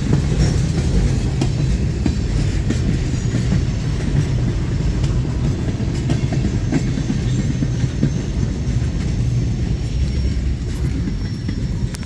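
CSX freight train's cars rolling past, a steady heavy rumble with wheels clacking over rail joints.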